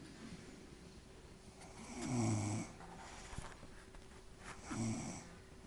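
A woman snoring in her sleep: two rough snores about two and a half seconds apart, each lasting under a second, with quiet breathing between them.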